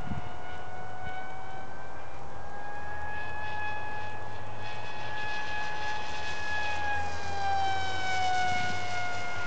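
Dynam Hawksky electric model glider flying past under power, its electric motor and propeller giving a steady whine. The pitch rises slightly as it approaches, then drops as it passes, loudest about three-quarters of the way through.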